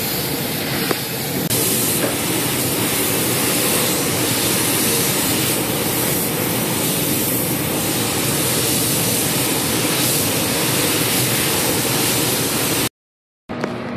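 Gravity-feed air spray gun hissing steadily as compressed air atomizes adhesion promoter onto motorcycle body parts. The hiss cuts off suddenly near the end.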